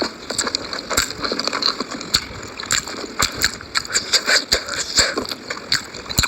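Close-miked eating sounds: a mouthful of Maggi instant noodles being slurped and chewed, with many short, irregular clicks.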